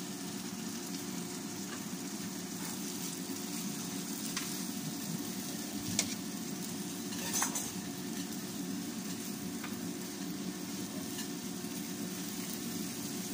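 Chopped onion, tomato and garlic sizzling gently in olive oil in a nonstick frying pan, stirred with a silicone spatula that scrapes and knocks against the pan now and then. A steady low hum runs underneath.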